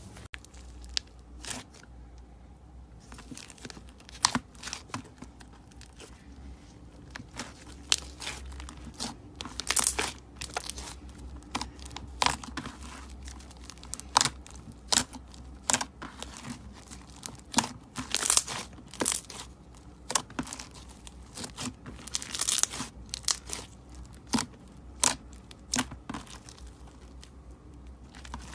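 Slime being squeezed and stretched by hand, giving irregular sharp crackles and tearing pops, some in quick clusters.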